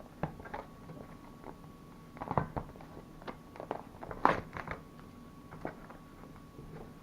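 Plastic film lid being peeled back from a microwaved frozen-meal tray: scattered crinkles and clicks of plastic, the loudest about two and a half and about four seconds in.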